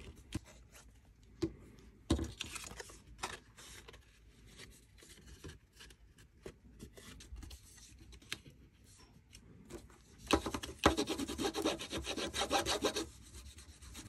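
Cardstock pieces rustling and tapping lightly on a tabletop as they are moved and pressed, then, about ten seconds in, roughly three seconds of rapid scratchy rubbing as a fold in the cardstock is creased flat with a tool.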